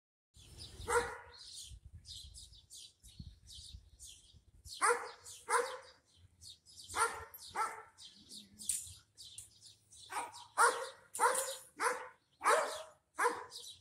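Dogs barking back and forth, one of them a German Shepherd, in about ten barks that come singly and in pairs. Small birds chirp high throughout.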